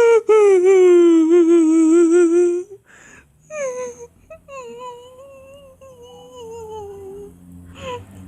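Crying sound effect: a high, wavering wail that lasts about two and a half seconds, with a quick wobble in pitch, then a short catch, then a second, quieter drawn-out wail that slowly falls in pitch.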